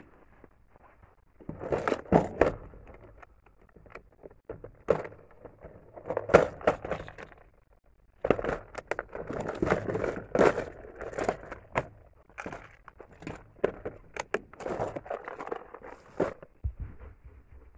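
Fishing tackle being handled close by: a plastic lure box clicking and knocking, and a backpack with plastic bags inside rustling, in irregular bursts with short pauses between them.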